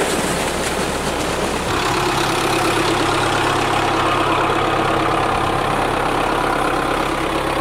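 Belarus 510 tractor's diesel engine running steadily under load, driving a large delivery pump, with water rushing from the pump's outlet pipe. The rush of water is strongest in the first two seconds, then the engine's steady note comes to the fore.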